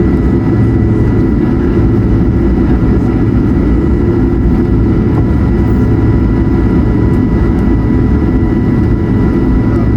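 Airbus A220-100's Pratt & Whitney PW1500G geared turbofans running at low power while taxiing, heard inside the cabin as a loud, steady rumble with two thin steady whining tones above it.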